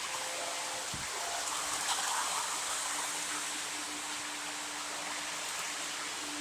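Lionel O gauge model train running on its track: a steady rushing noise with a steady hum underneath.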